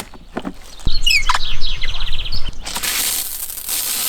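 A bird calling: quick chirps sliding up and down, then a fast trill. About three seconds in, a steady hiss starts and keeps going.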